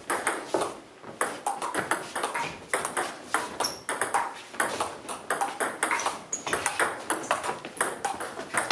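Table tennis rally: the ball clicking sharply off the bats and the table in a quick, irregular run of hits.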